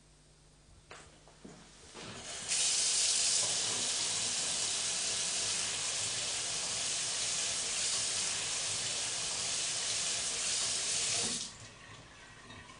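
Kitchen tap running hard into the sink, water splashing down toward the drain; it comes on about two seconds in and is shut off near the end.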